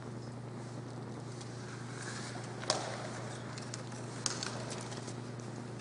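Soft footsteps and clothing rustle over a steady low hum. There are two sharp knocks, the louder a bit under three seconds in and a lighter one just after four seconds.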